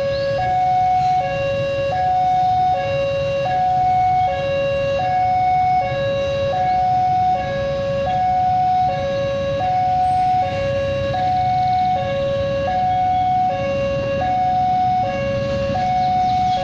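Railway level-crossing warning alarm sounding a steady two-tone hi-lo signal, switching between a higher and a lower tone about every three-quarters of a second, warning of an approaching train. A low rumble runs underneath.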